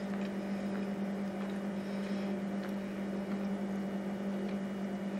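A steady low hum, with a few faint clicks of someone chewing a burger with her mouth closed.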